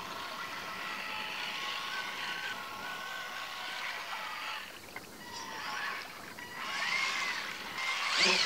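Radio-controlled Tamiya dump truck driving through shallow water: its electric motor and gearbox whine, the pitch rising and falling with the throttle, over the splash and slosh of the tyres in the water. The sound swells in the last few seconds, with a sharp splash just before the end.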